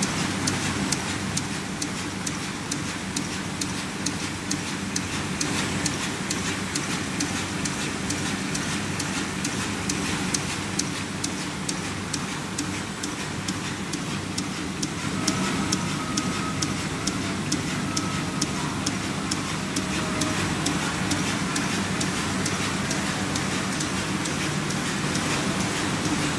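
KBA Rapida 105 sheetfed offset printing press running in production, feeding sheets: a steady mechanical din with a fast, even ticking over a constant hum.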